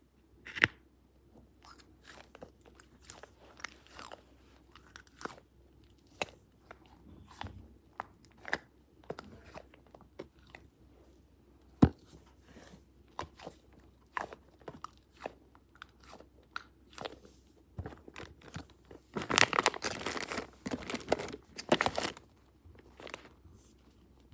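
Irregular sharp crunches and clicks, with a dense stretch of crunching lasting about three seconds near the end.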